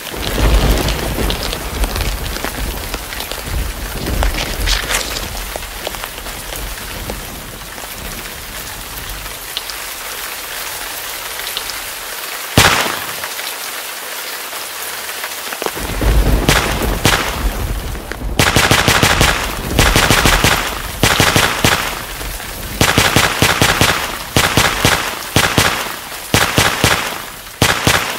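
A thunderstorm: heavy rain with low rumbles, a single sharp crack about halfway through, then in the second half long runs of rapid sharp cracks.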